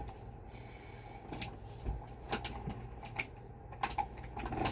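Handling noise from a plastic vintage Hoover canister vacuum: a few scattered clicks and knocks as it is moved and its parts are handled, over a low steady hum.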